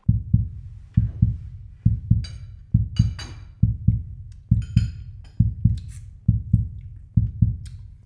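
Heartbeat sound effect: a low double thump, lub-dub, repeating a little faster than once a second and starting suddenly. Brief higher ringing sounds come in twice, about two and five seconds in.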